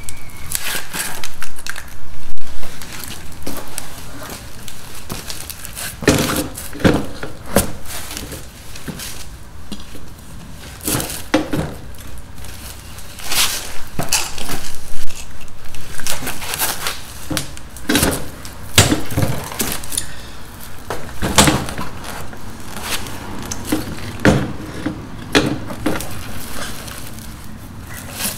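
Irregular knocks and clunks of a heavy QS 8 kW hub-motor wheel being manoeuvred into a motorcycle swingarm, its axle bumping and scraping against the dropouts as it is lined up, with handling noise between the knocks.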